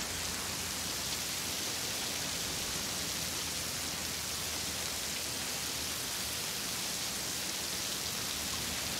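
Heavy rain falling steadily, with water sheeting off the edge of a roof overhang onto the pavement as an even, unbroken hiss.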